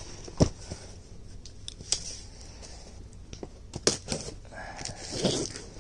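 Handling noise: a few sharp knocks and rustles as cardboard boxes and household items are picked up and set down.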